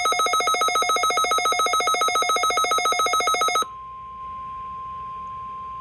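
A loud, rapidly pulsing electronic alert tone, ringing like a telephone bell, stops abruptly about three and a half seconds in. A single steady tone takes over: the NOAA Weather Radio 1050 Hz warning alarm tone that opens a weekly test alert.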